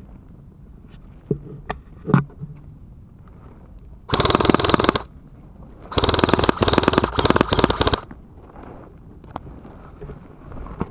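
Airsoft rifle firing on full auto at close range: a burst of about a second, a short pause, then a longer burst of about two seconds, each a fast, even stream of shots. A few sharp clicks come before the first burst.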